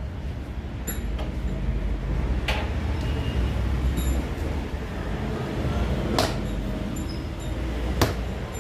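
Roadside street-food stall ambience: a steady low rumble of traffic with four short sharp knocks of utensils or dough being handled, the loudest near the end.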